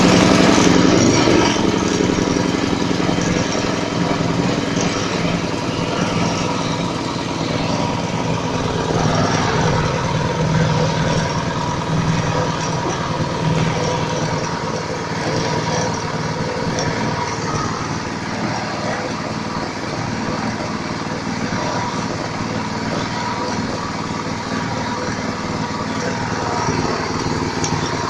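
Small single-cylinder Casper engine running steadily, driving a homemade PCP air pump through a reduction gearbox and crank arm. It is loudest in the first second or two, then settles to an even run with a steady high whine.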